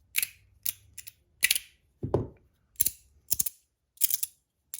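Bronze Rapt fidget being handled, giving a run of sharp metallic clicks about every half second, with one duller knock about two seconds in.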